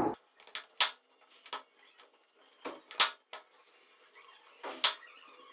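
Rolling pin working a ball of dough out into a thin round on a rolling board, giving several sharp, irregular knocks and clacks as the pin strikes the board. The loudest come about three seconds in and near the end.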